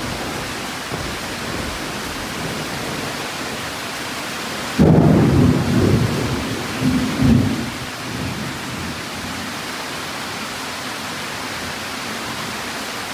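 Heavy rain falling steadily. About five seconds in, a clap of thunder rumbles in suddenly and loudly, lasting about three seconds with a second swell, then dies back to the rain.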